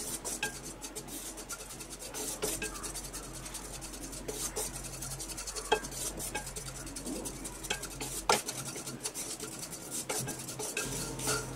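Wooden spatula stirring and scraping split yellow mustard seeds as they roast in a nonstick kadai: a steady patter of light scratches and clicks, with a couple of sharper knocks of the spatula on the pan in the second half.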